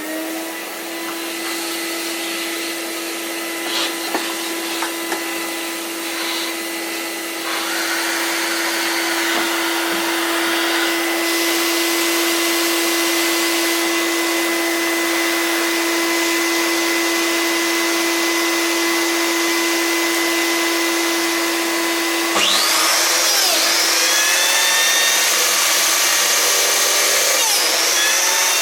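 Electric motor of a biscuit jointer running with a steady high whine. About two-thirds of the way through the sound changes, and the pitch dips briefly and recovers twice.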